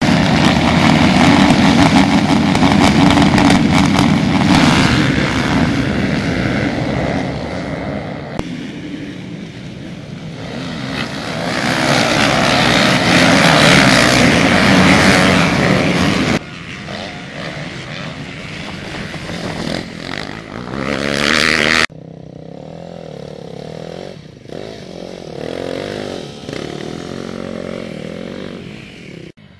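Several motocross bike engines revving together at the start and a pack of dirt bikes racing. After abrupt cuts, a single enduro bike's engine runs more quietly.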